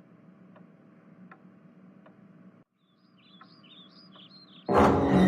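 A faint room background with a clock ticking slowly, about once every three-quarters of a second. It breaks off briefly, then a few quick bird chirps are heard, and loud music starts near the end.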